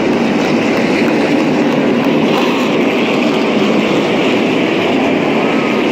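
A pack of NASCAR Cup stock cars passing at full speed, their V8 engines merging into one loud, steady wall of engine noise that does not let up.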